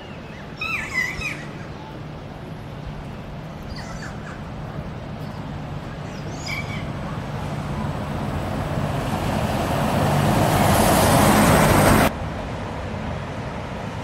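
Kea parrots give a few short screeching calls, a loud one about a second in and fainter ones later, over a steady low engine hum. A passing vehicle's noise swells over several seconds into the loudest sound, then cuts off abruptly about two seconds before the end.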